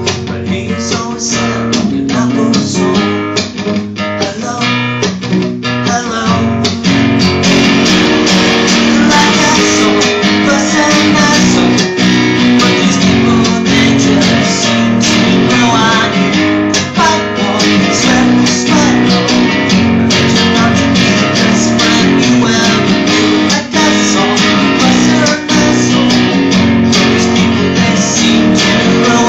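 Sunburst Gibson acoustic guitar strummed in steady chords, getting louder about seven seconds in.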